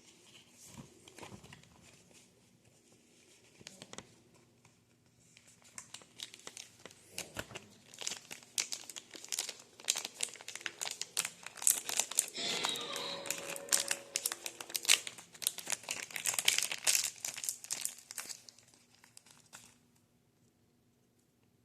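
Packaging being crumpled and crinkled by hand. A few scattered crackles come first, then dense, continuous crinkling builds from about six seconds in, is loudest in the middle and stops near the end.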